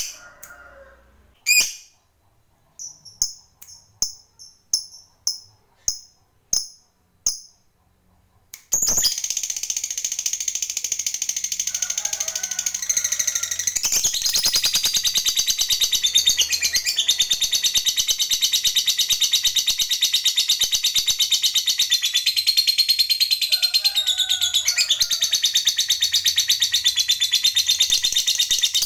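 Lovebird calling: a string of short, sharp chirps about twice a second, then about nine seconds in it breaks into one long, unbroken rapid chatter. This long chatter is the 'ngekek panjang' that keepers prize as the sign of a bird in full song.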